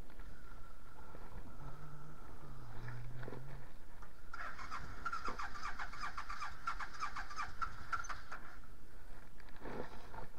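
Motorcycle starter motor cranking the cold engine in a quick, even rhythm of about five pulses a second for roughly four seconds, then stopping.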